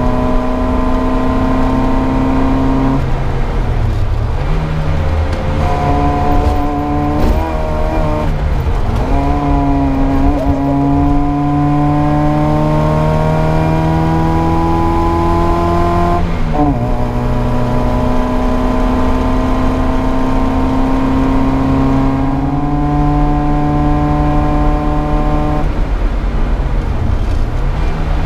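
Historic competition car's engine at speed, heard from on board. Its pitch holds steady or creeps slowly upward, dipping briefly and climbing back about four times, over a steady road rumble.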